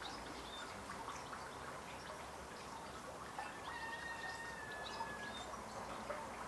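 Faint outdoor garden ambience with scattered bird chirps and a high, held whistled note about halfway through.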